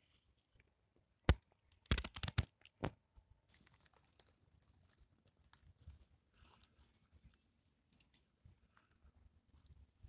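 Pocket knife cutting a morel mushroom free at the base among dry pine needles and grass: a sharp snap just over a second in and a quick run of crackles about two seconds in, then dry rustling and crinkling of needles as the morel is lifted out.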